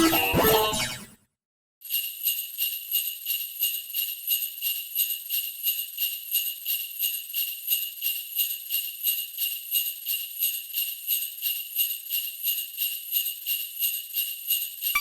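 Music cuts off about a second in, and after a short silence bells start ringing in a steady, rapid rhythm of about four strikes a second, bright and high-pitched with no low end.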